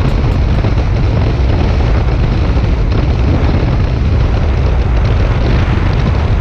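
Loud, steady wind rumble on the microphone from a fishing boat running at speed, with engine and hull noise mixed in.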